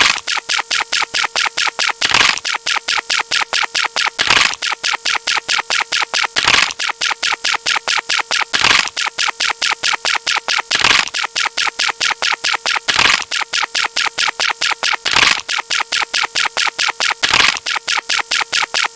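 A rapid, evenly spaced run of synthetic sound-effect clicks, about five a second, with a louder hit about every two seconds over a steady tone.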